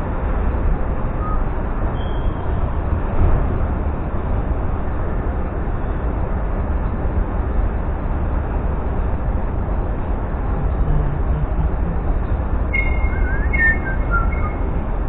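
Steady wind rumble buffeting the microphone during a bike ride, with a few short bird chirps near the end.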